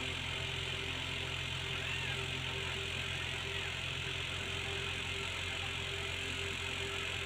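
Electric fan running with a steady hum.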